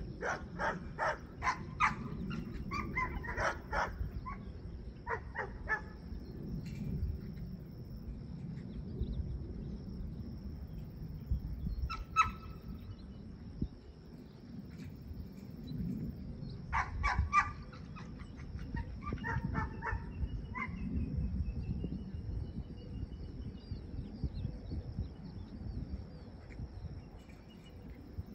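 A dog barking in several quick runs of short, sharp barks, the busiest in the first few seconds and again in the second half.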